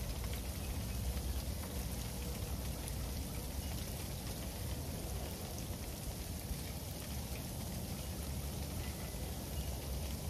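Freezing rain falling steadily, with many fine ticks of drops striking hard surfaces over an even hiss and a low steady rumble underneath.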